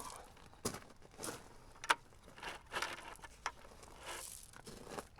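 Handling noise from work on the ground: scattered scrapes and crinkling with a few sharp clicks.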